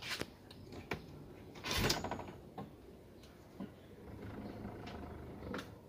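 Light knocks and one short, louder scrape from wooden cabinet doors being handled.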